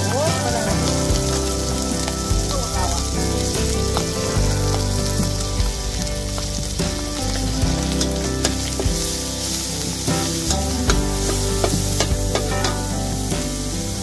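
Eggs frying in oil in a steel wok, a steady sizzling hiss. A metal spatula scrapes and clicks against the wok now and then as the eggs are stirred.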